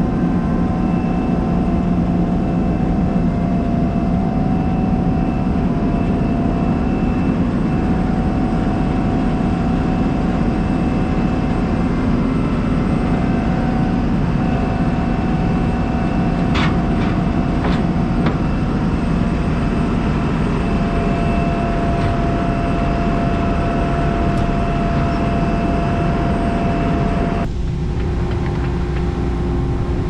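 John Deere S680 combine running, heard from inside the cab: a loud, steady low drone with several steady whining tones over it. A few short clicks come about halfway through, and the tone of the machine changes abruptly near the end.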